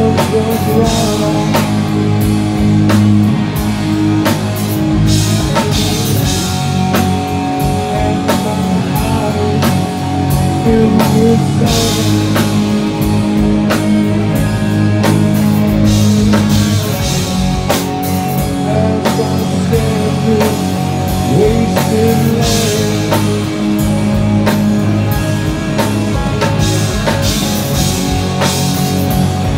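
Live southern rock band playing loud: drum kit, electric guitar and keyboards, with a singer's voice over them.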